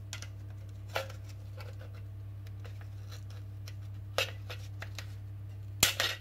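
Flat screwdriver prising a clear plastic headlight lens off its grey plastic housing, the bitumen-rubber glue only starting to give: short plastic clicks and scrapes about a second in, about four seconds in, and a louder pair near the end. A steady low hum sits beneath.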